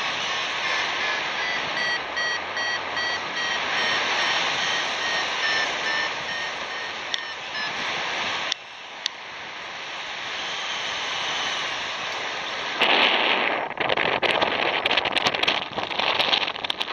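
Airflow rushing over the camera microphone of a paraglider in flight, with a variometer beeping short repeated tones whose pitch steps lower over the first seven seconds or so. About thirteen seconds in, the wind noise turns louder and rougher, crackling and buffeting on the microphone.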